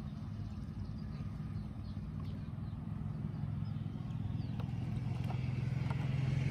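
A low, steady engine hum that grows gradually louder toward the end, with a few faint clicks.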